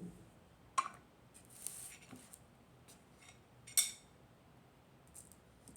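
Kitchen utensils being handled while chopped garlic is dealt with: two sharp clicks about three seconds apart, with a brief scraping between them.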